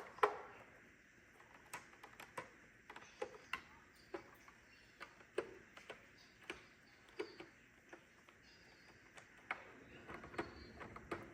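Light, irregular clicks and taps of a hand screwdriver and small plastic parts on a Roomba's plastic underside as screws are taken out of its cleaning head module.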